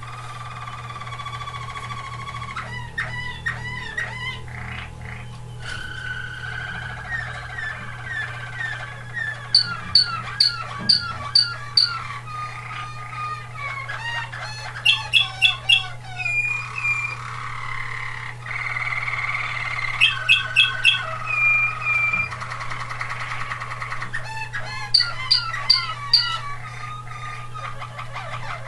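Waterslager (Malinois) canaries singing: song built of repeated-note phrases, some rising and falling, broken about every five seconds by a loud, fast run of sharp high notes. A steady low hum runs underneath.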